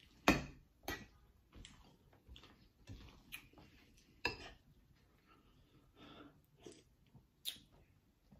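Eating Cap'n Crunch Berries cereal in milk: a spoon knocking against a glass bowl and the cereal being chewed, heard as about nine short, irregular clicks and crunches.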